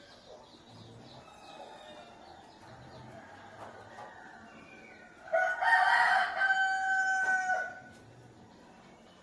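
A rooster crows once about five seconds in, a single long call held for over two seconds. Faint high chirps come before it.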